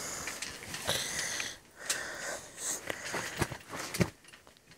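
A towel rubbing and wiping across a wet trampoline mat, an uneven rasping swish broken by small knocks, with a louder thump about four seconds in.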